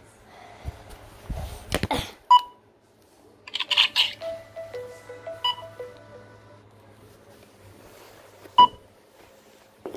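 Electronic device beeping: short, sharp beeps about every three seconds, with a brief run of stepping electronic tones in the middle, like a little tune. Handling rustles come before it.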